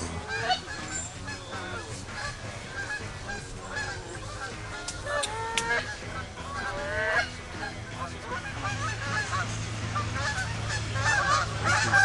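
A flock of Canada geese honking, with many short calls overlapping throughout.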